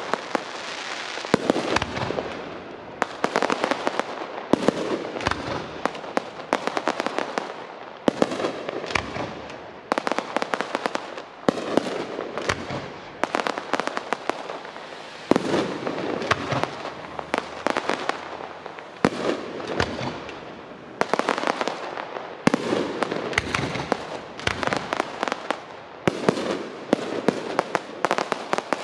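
Aerial fireworks display: shells bursting overhead one after another, heard as a continuous run of sharp bangs and dense clusters of cracks.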